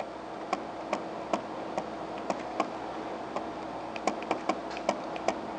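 Stylus ticking and tapping against a tablet screen during handwriting: a string of light, irregular clicks over a faint steady hum.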